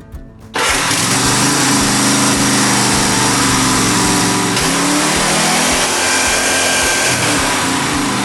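Cub Cadet RZT S zero-turn mower's engine, just reassembled, starts easily about half a second in and runs loudly at speed, its pitch dipping briefly near the middle and then rising again.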